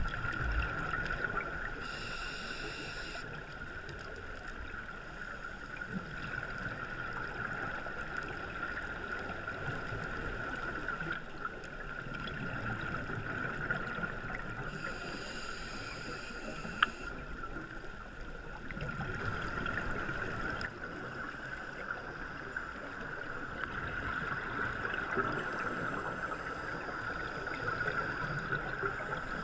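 Underwater sound of a scuba dive: a steady high-pitched hum over constant hiss, with low bubbling rumbles from divers' exhaled regulator bubbles swelling every several seconds.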